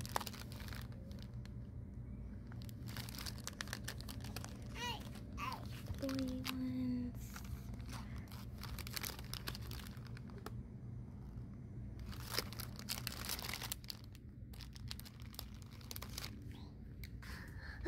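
Plastic packaging crinkling and rustling as it is handled, with scattered clicks, over a steady low hum of the store. A child's voice sounds briefly about five seconds in.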